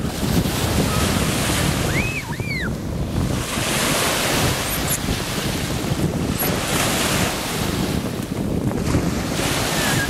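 Small sea waves washing and breaking onto a sandy shore, the surf swelling every few seconds, with heavy wind rumbling on the microphone. Two short high cries sound about two seconds in.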